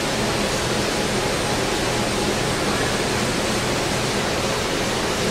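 SmartShop CNC router running: a steady, even hiss with a faint low hum underneath.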